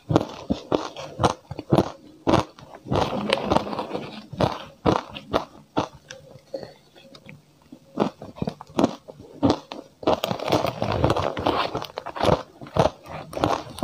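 Close-miked crunching and chewing of powdery frozen ice dusted with matcha: dense runs of crisp crunches as bites are chewed, thinning to scattered crackles midway before the crunching picks up again.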